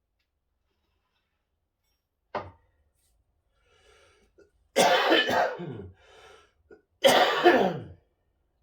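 A man coughing hard twice, each cough about a second long, with a short knock a couple of seconds before.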